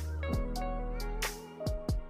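Background music with a steady beat of drum hits over held notes.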